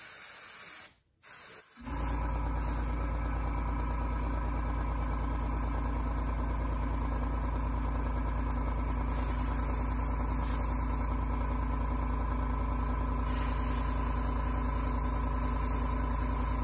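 A short hiss of air from an airbrush, then about two seconds in the airbrush's air compressor starts and runs steadily with a deep hum.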